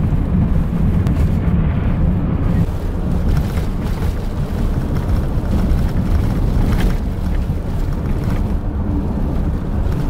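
Road and engine noise inside a moving car's cabin: a steady low rumble.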